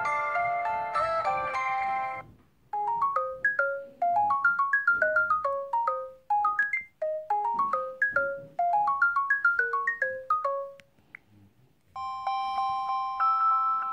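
LG Smart Folder phone ringtones playing in turn. A chordal ringtone ends about two seconds in. Then a ringtone of short, quickly fading notes hopping up and down runs for about eight seconds, and after a brief pause a ringtone of sustained bell-like tones begins near the end.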